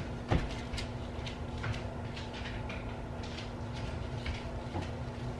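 Footsteps in sandals walking away, about two steps a second, over a steady low hum.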